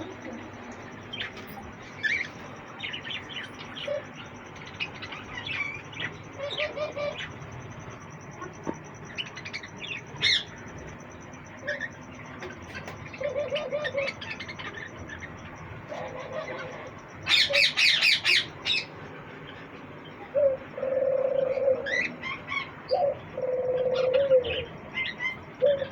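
Caged cockatiels and pigeons calling together. Short high chirps come throughout, with a louder run of rapid chirps a bit past the middle. Low held pigeon coos grow more frequent toward the end.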